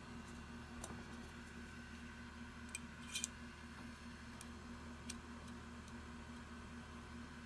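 Scattered light metallic clicks of small Glock 19 slide parts being handled and fitted back together by hand, with the sharpest, a quick double click, about three seconds in.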